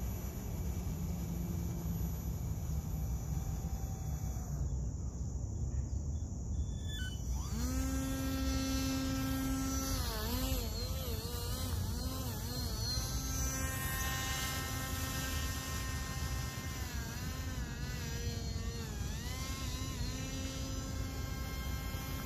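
Radio-controlled model airboat's electric motor and air propeller whining as it drives off across the water. The whine starts about seven seconds in, rises quickly in pitch, then holds with several wavering stretches as the throttle is worked, and falls in pitch at the very end.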